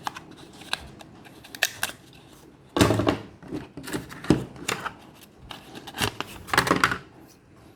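Small plastic parts and packaging being handled: irregular clicks and rustles, loudest in clusters about three seconds in and again near the end.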